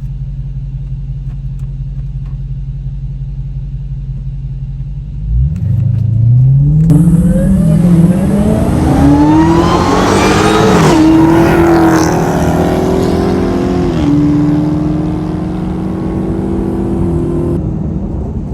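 Stock Hellcat's supercharged 6.2-litre Hemi V8, heard from inside the cabin: idling, then accelerating hard from about five seconds in, its pitch climbing and falling back at each of several upshifts before settling to a steady cruise near the end.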